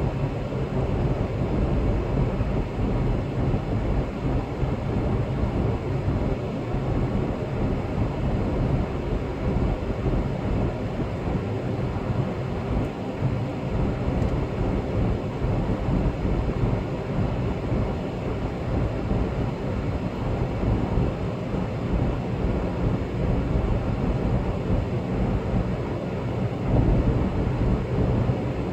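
Steady low rumble of road and engine noise from a moving vehicle.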